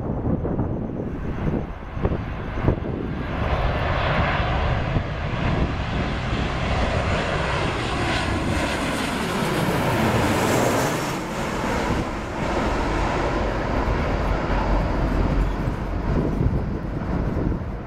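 Twin-engine jet airliner passing low overhead on final approach to land. Its engine noise builds to a peak about ten seconds in, the whine falls in pitch as it passes, and a low rumble follows as it moves away.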